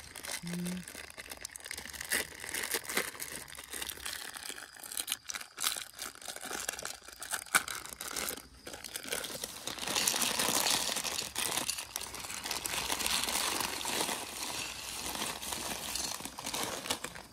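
Crinkling and rustling of a plastic snack packet being handled, with many small crackles, busiest in the second half.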